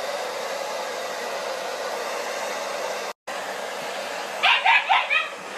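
Handheld blow dryer running steadily while drying a wet Siberian husky puppy; the sound drops out for a moment about three seconds in. Near the end, the puppy gives several quick, high yips over the dryer.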